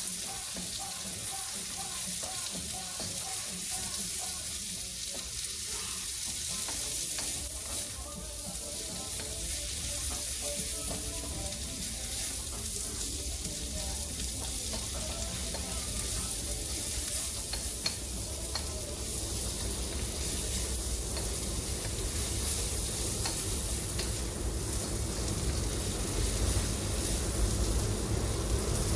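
Green and red bell peppers with onions sizzling steadily in a hot pan while they are stirred, with light clicks of the stirring utensil against the pan.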